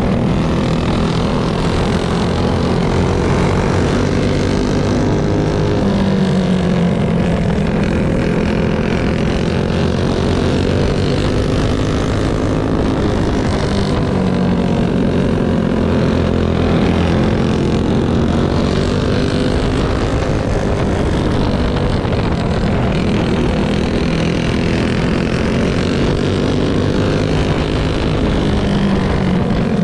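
Racing go-kart's four-stroke single-cylinder engine running hard, heard onboard, its pitch rising and falling with the throttle. Other karts' engines run close alongside.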